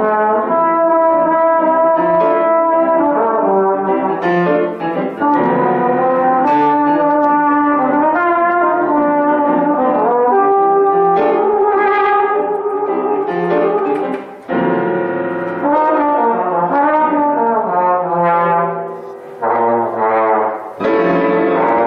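Instrumental music with a brass instrument playing a melody in held notes.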